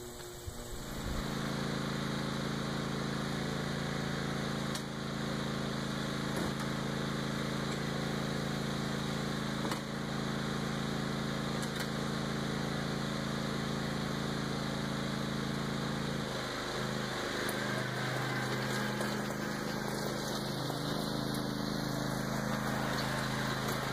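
Riding lawn tractor's engine running steadily. About sixteen seconds in the engine note changes as the tractor pulls away with the dump cart hitched behind.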